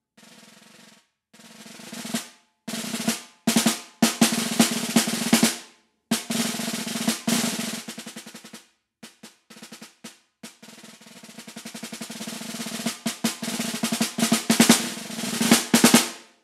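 Concert snare drum played with wooden sticks, snares on: a soft roll that swells, then crisp accented strokes and rolls broken by short rests. Near the end a long crescendo of rolls and accents builds to the loudest strokes and stops abruptly.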